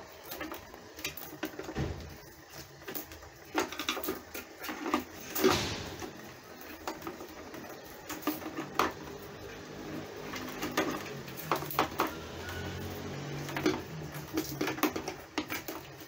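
Hands working a vacuum cleaner's power cord and plastic housing: scattered clicks, rattles and small knocks of plastic and cable, the loudest knock about five and a half seconds in.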